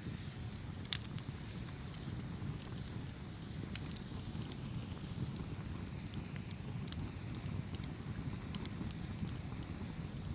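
Campfire burning, with sharp crackles and pops from the wood over a steady low rumble of the flames; one pop about a second in is the loudest.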